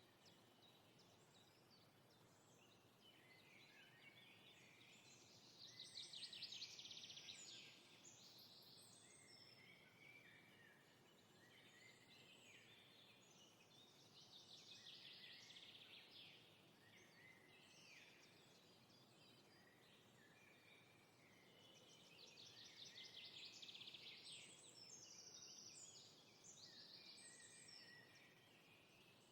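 Faint birdsong: trilled, warbling song phrases come back about every eight to nine seconds, over a low steady hiss.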